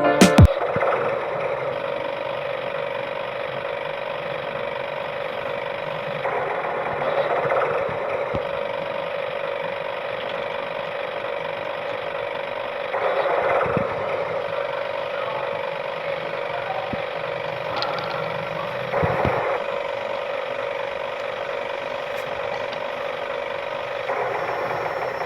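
Small electric motor and gearbox of a toy mini tractor running with a steady whine. It briefly gets louder a few times.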